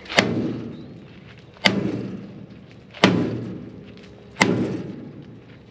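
Sledgehammer striking the steel flex header four times, about one and a half seconds apart, each heavy blow ringing and dying away, to knock the header over into the trailer channel.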